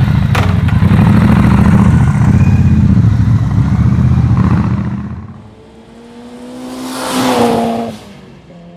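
Loud motorcycle engine running and revving, with a sharp click just after it starts, fading out about five seconds in. A rising whoosh then swells and dies away near the end.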